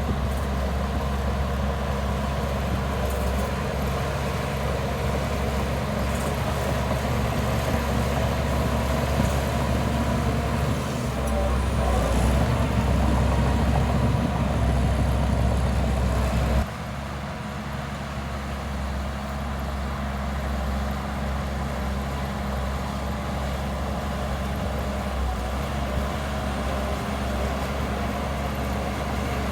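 Heavy diesel engine of earthmoving machinery running steadily with a low, even hum. It grows louder about eleven seconds in, then drops suddenly about six seconds later and runs on at a lower level.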